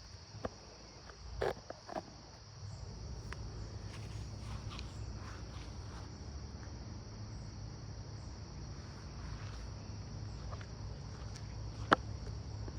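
Steady high-pitched drone of an insect chorus over a low background rumble, with a few sharp clicks about one and a half and two seconds in and again near the end.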